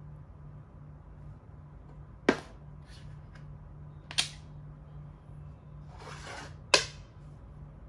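Plastic makruk (Thai chess) pieces clacking down on the board: three sharp clicks about two seconds apart. Just before the last click there is a brief scrape of a piece sliding across the board.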